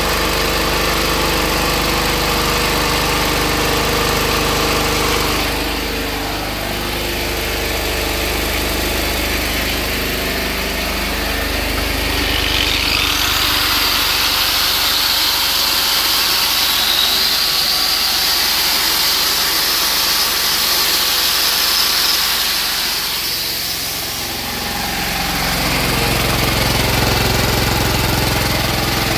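A high-compression diesel engine converted to run on woodgas, running steadily at about 3000 rpm under a 1.5 kW load. About twelve seconds in, an angle grinder takes over with a hissing whine that rises in pitch, and the engine running is heard again near the end.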